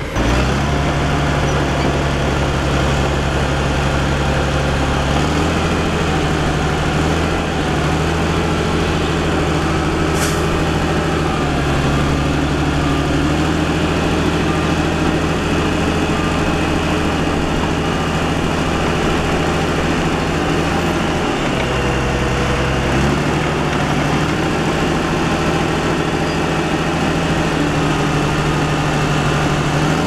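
Diesel engine of a tipper dump truck running steadily while its hydraulic ram raises the loaded bed to tip out soil. The engine speed steps up and down a few times, and there is a single sharp click about ten seconds in.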